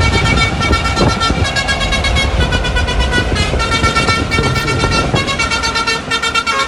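Lorry's telolet horn playing a tune: several pitched notes sounding together, switching to new notes about every half second, over a low truck engine rumble. The horn starts suddenly at the beginning.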